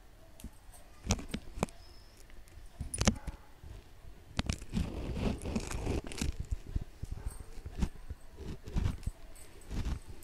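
A hand squeezing and pressing a wet mixture of grated bottle gourd and gram flour in a stainless steel bowl. The sound is made up of irregular soft knocks and rustling, busiest about halfway through.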